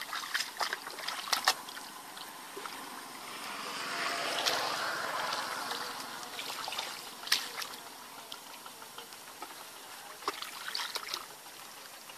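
Hands and legs splashing and sloshing in shallow, muddy water while groping for fish, with scattered sharp splashes and a longer swell of water noise in the middle.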